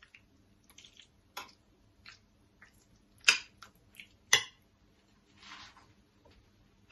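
Scattered light clicks and taps of a spoon against a dish, the two loudest about three and four seconds in, with a soft rustle a little after five seconds.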